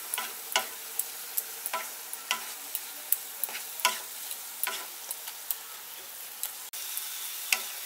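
Onion, tomato and spice masala sizzling in oil in a kadai while a wooden spatula stirs it, with sharp taps and scrapes against the pan about twice a second. This is the masala being fried down (koshano) before more ingredients go in.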